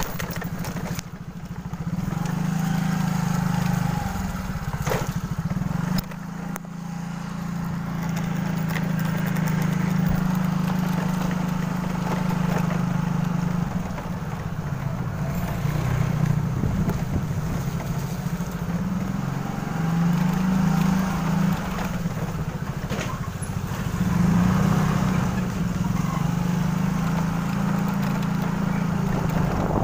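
Motorcycle engine running as the bike rides along, its sound dipping and picking up again several times.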